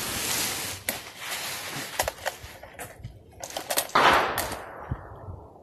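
A few sharp clicks and taps of handling at the bench. Then, about four seconds in, a single loud gunshot from elsewhere on the range, with an echoing tail that fades over a second or so.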